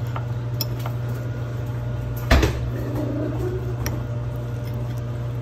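A steady low hum with scattered light clicks and one sharp thump about two seconds in, like something being knocked or set down.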